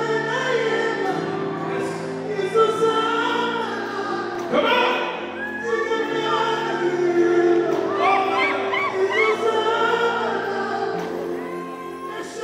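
Intro music: a choir singing over long held chords, fading out near the end.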